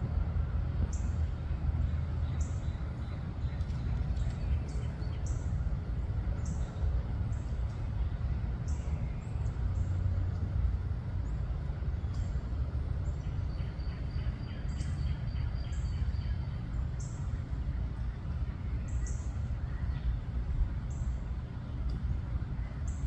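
Short high bird chirps, repeated irregularly every second or so, with a quick run of calls about two-thirds of the way through, over a steady low rumble.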